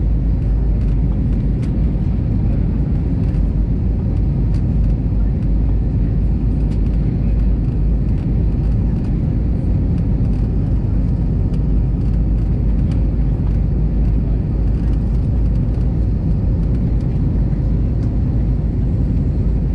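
Airbus A320 cabin noise heard inside the cabin during the climb after takeoff: a steady, deep rumble of the jet engines and rushing air.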